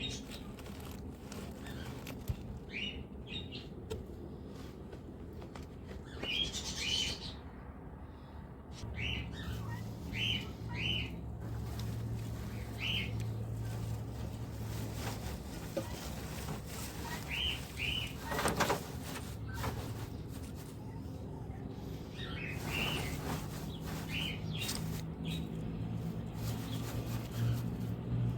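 Small birds chirping in short, scattered calls. A steady low hum starts about nine seconds in, with a few faint knocks.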